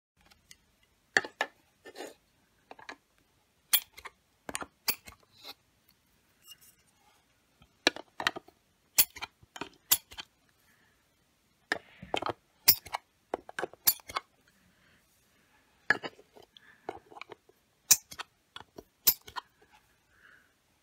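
An irregular run of sharp clicks and clinks from a Marxman aerosol hole-marking tool, its hard plastic tip and can pressed through a fitting's screw holes against the wall to spray marker dots.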